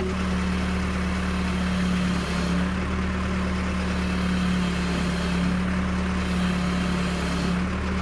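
Case backhoe's diesel engine running steadily at a constant speed, a low even hum with no change in pitch.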